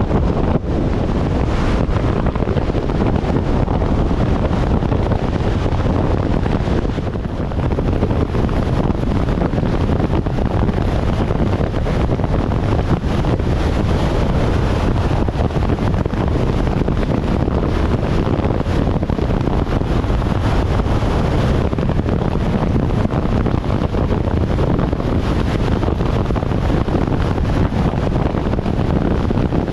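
Strong wind buffeting the microphone over a loud, steady rushing noise, with a brief lull about seven seconds in.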